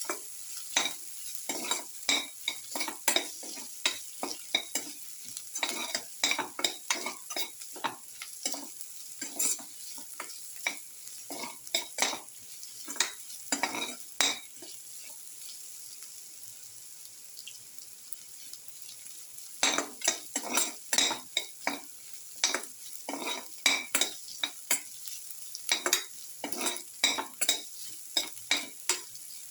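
Ginger and shallots sizzling in hot oil in a pan while a spoon stirs them, scraping the pan in quick irregular strokes. The stirring stops for a few seconds about halfway through, leaving only the steady sizzle, then picks up again.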